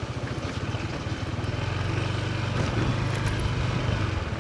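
A vehicle engine running nearby with a fast, even pulse, growing a little louder in the middle and easing off near the end.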